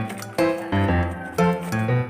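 Background music: plucked notes with a steady beat, about two strong notes a second.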